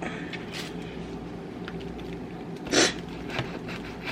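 Knife cutting a sandwich roll in half: faint scattered clicks and scrapes, with one short, louder scrape about three seconds in.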